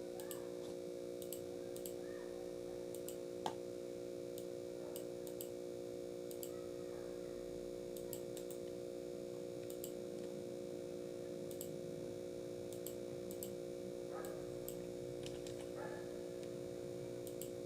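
Faint, irregular computer mouse clicks, one a little louder about three and a half seconds in, over a steady electrical hum.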